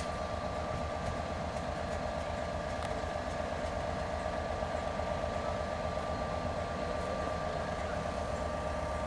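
Diesel-hauled passenger train, with a class 67 locomotive at the far end of the coaches, running steadily at the platform as the train begins to move off slowly. The sound is a steady pulsing engine rumble with a thin steady whine above it.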